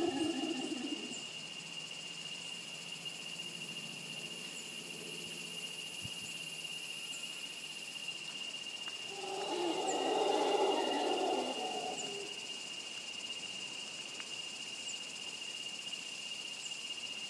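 Howler monkey howling from the trees: a rough, low roar that trails off in the first second and comes again for about three seconds a little past the middle.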